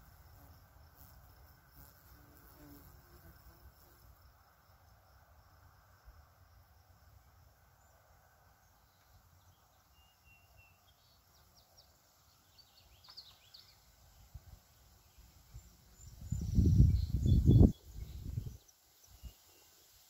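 Wind gusting across the microphone about three-quarters of the way in, a few seconds of loud low rumbling buffeting. Underneath is a faint field ambience: an insect trilling steadily early on and a few short bird chirps in the middle.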